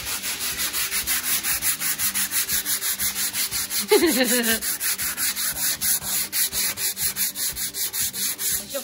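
Sandpaper rubbed by hand over a Mercury Black Max aluminium boat propeller, quick back-and-forth rasping strokes at about five a second, as the prop is sanded down for repainting.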